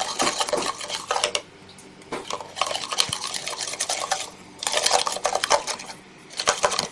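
A utensil scraping and clinking against a plate in bursts of stirring and mixing, with three short pauses.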